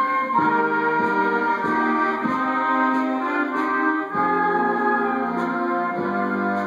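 Student concert band playing: flutes, clarinets, saxophones and brass sounding sustained chords that move on in steps every half second or so.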